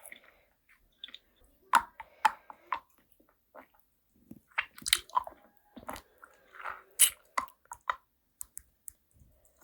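Close-up mouth sounds of a person biting and chewing food: irregular crisp crackles and wet clicks that come in clusters, with short quiet pauses between them.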